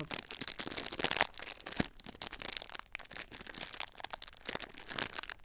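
Shiny foil blind bag crinkling and crackling in irregular bursts as fingers grip, squeeze and pull at it.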